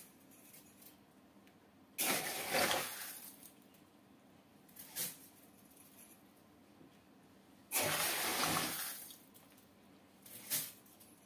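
Fine aquarium gravel scooped from a plastic bowl and poured into a glass aquarium: two long pours of about a second and a half each, some six seconds apart, with shorter scrapes of the scoop in between.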